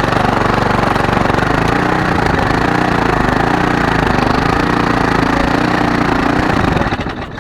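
Lawnmower engine running loudly after a repair, its speed wavering, dipping and recovering several times. The sound falls away abruptly near the end.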